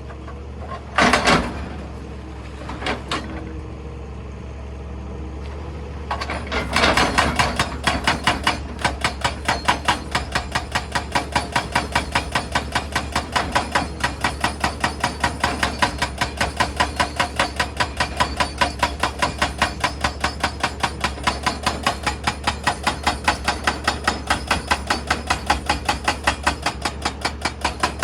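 Excavator-mounted hydraulic rock breaker hammering stone: a few separate knocks, then from about six seconds in a steady, rapid train of blows at about four a second, over the low, steady drone of the machine's engine.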